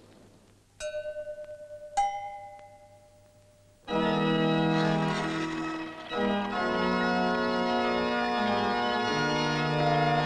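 Two bell-like tones: the first is held with a fast wobble, the second is struck and dies away. About four seconds in, organ music begins, with held chords that carry on loudly to the end.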